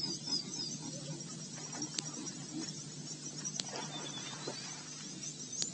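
Insects chirping steadily in the bush over a low hum, with a few sharp clicks. There is faint splashing about four seconds in as a dog wades through shallow water.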